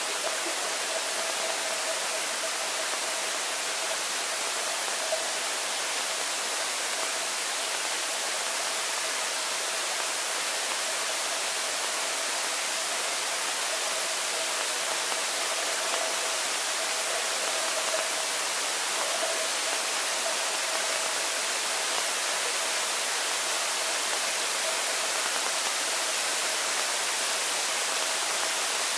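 Steady hiss heard by a camera lying underwater in a swimming pool, with a faint steady hum running through it.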